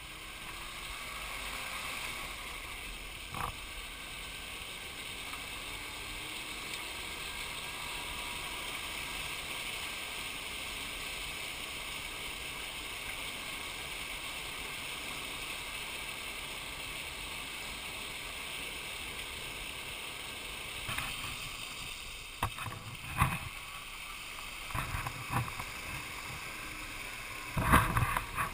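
Tracked mini truck driving on its rubber tracks, a steady running noise. In the last several seconds, irregular splashes and thumps as the tracks plough through water and mud, loudest near the end.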